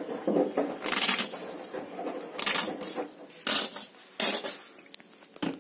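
Plastic squeeze bottle of mustard being squeezed onto raw meat, sputtering out in several short, hissy spurts.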